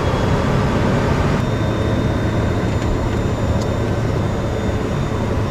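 HondaJet's twin GE Honda HF120 turbofan engines running at ground idle, heard inside the cockpit as a loud, steady hum. A thin high tone joins about a second and a half in, with a few faint clicks.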